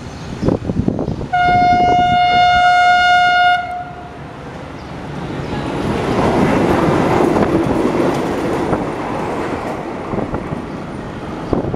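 Socofer rail maintenance vehicle sounding one steady horn blast of about two seconds as it approaches, then running past close by, its engine and wheels on the rails swelling to a peak and fading.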